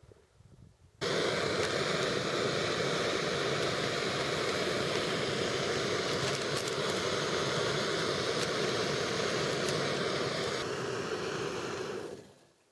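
Backpacking gas canister stove burner running under a pot: a loud, steady rushing hiss that starts suddenly about a second in and fades out near the end.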